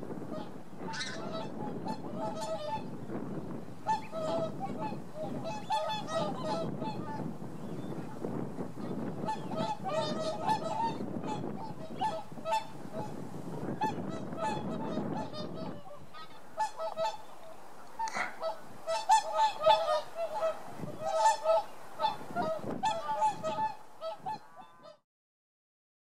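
Flock of whooper swans calling, with many short honking calls overlapping. A low background rush lies under them for the first two-thirds. After that it falls away and the calls come clearer and louder, until the sound cuts off abruptly about a second before the end.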